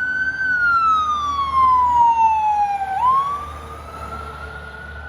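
A wailing siren: its pitch falls slowly for about three seconds, then snaps up and climbs again, over a steady low rumble.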